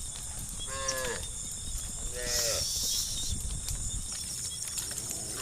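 Cattle mooing: two short calls about a second and a half apart, each dropping in pitch.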